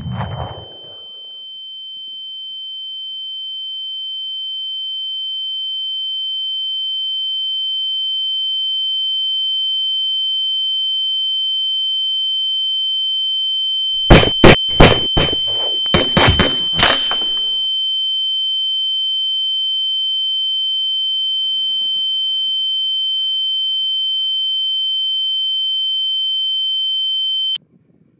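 Steady high-pitched ringing tone, the sound-design ear ringing that follows a gunshot. It swells in over the first several seconds, holds, and cuts off suddenly near the end. Around the middle, a run of loud, sharp cracks (about four in quick succession, then a tighter cluster) sounds over it.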